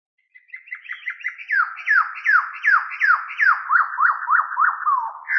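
A run of whistled notes, each sliding down in pitch, coming quickly at first and then about two to three a second, turning into short up-and-down notes near the end.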